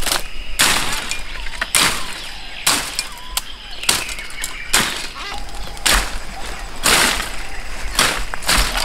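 Machete chopping at the base of a young bamboo shoot among dry undergrowth, about one short, sharp stroke a second, eight or so in a row.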